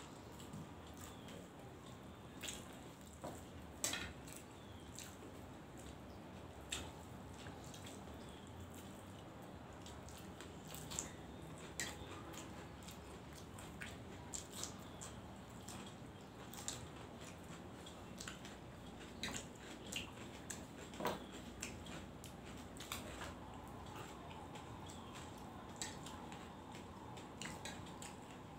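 Faint sounds of two people eating rice with their fingers from steel plates: soft squishing and chewing, with small clicks and taps at irregular moments over a low steady hiss.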